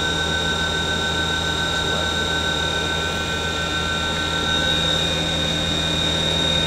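Haas VF-5D/40 vertical machining center's spindle running free at about 5,000 RPM, a steady high whine over a low hum. It runs smoothly.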